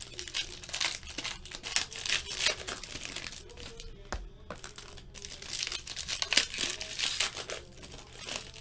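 Foil trading-card pack wrappers being torn open and crinkled by hand, an irregular run of crackling rustles with a short lull about four seconds in.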